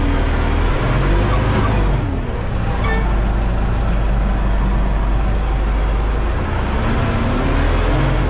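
Arbos tractor's diesel engine running steadily under the load of a plough, heard from inside the cab, with a short sharp click about three seconds in.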